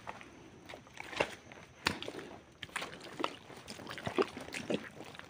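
Footsteps of a person walking through wet mud and shallow water: irregular squelching, sloshing steps.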